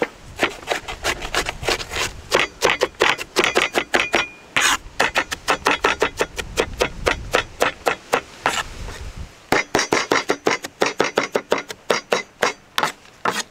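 Kitchen knife chopping onions on a wooden cutting board: rapid, even knocks of the blade on the board, about six a second, with brief pauses.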